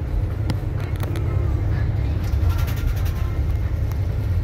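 Steady low rumble of a coach's engine and tyres heard from inside the passenger cabin while it drives along.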